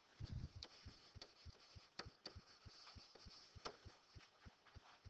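Near silence with faint writing sounds from a stylus on a screen: a string of soft taps, a few sharper clicks and light scratching.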